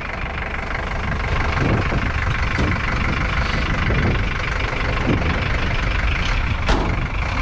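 Motor vehicle engine running steadily at low revs, with a few short knocks or bumps over it, the loudest near the end.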